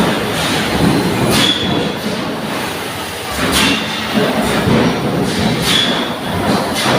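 Robotic welding machine running: a steady mechanical clatter broken by four sharp strikes, roughly two seconds apart, several of them with a brief high ring.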